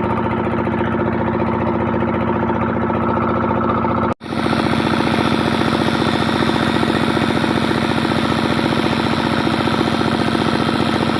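A small engine running steadily with a fast, even beat. It drops out abruptly about four seconds in and picks straight back up.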